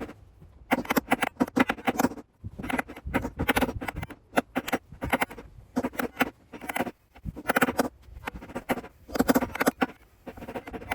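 Hammer blows on an old washing-machine drum bearing used as a driver, tapping a new bearing into the bearing housing: quick runs of sharp metal strikes, several a second, with short pauses between runs.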